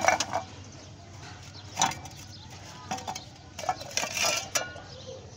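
Galvanized iron pipe knocking and scraping against a metal basin of dirty water: a few separate clanks, the longest cluster about four seconds in.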